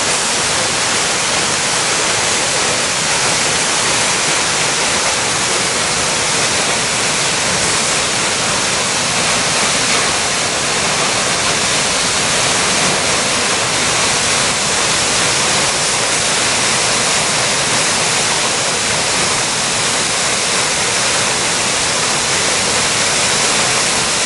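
Plodda Falls waterfall pouring: a loud, steady, unbroken rush of falling water.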